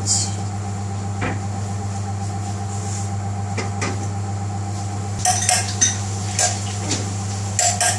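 Steady kitchen hum with scattered metallic clinks and taps of pots and pans, a cluster of them about five seconds in and more near the end. A lidded pot of rice is coming to the boil on the gas hob.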